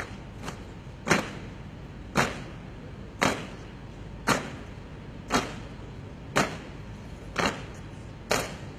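Boots of a marching formation of soldiers striking the paved parade ground in unison. The sharp stamps come about once a second in an even rhythm, each with a short echo.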